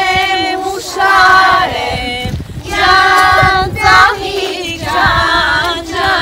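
A group of women and small children singing together while walking, a song in three held phrases with short breaths between them.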